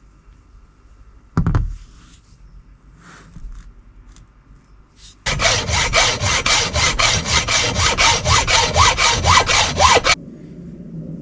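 A single knock, then a hand tool worked rapidly back and forth across a workpiece, about five rubbing strokes a second for some five seconds, stopping abruptly.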